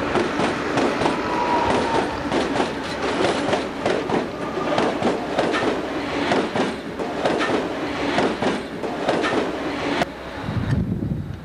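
Model-railroad empty log train rolling close past: a rapid, uneven run of clicks and rattles from the cars' wheels on the track. A sharp click comes as the caboose passes about ten seconds in, leaving a lower rumble.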